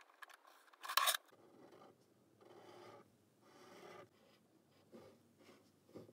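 A metal chain necklace clinking briefly on paper about a second in. Then a pen drawing on paper: several scratchy strokes, each half a second to a second long, with shorter ones near the end.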